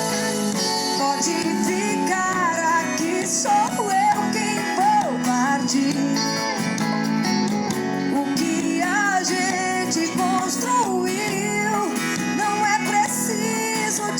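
Instrumental intro of a sertanejo song: acoustic guitar and band with a gliding lead melody, before the lyrics start.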